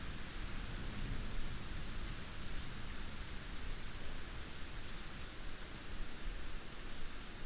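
Heavy rain falling steadily, an even hiss without breaks or distinct drops.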